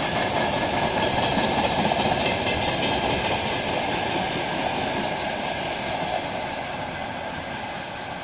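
Freight train of railway tank wagons rolling past on the rails, a steady rumble of wheels on track with a faint whine, fading from about six seconds in as the end of the train passes and moves away.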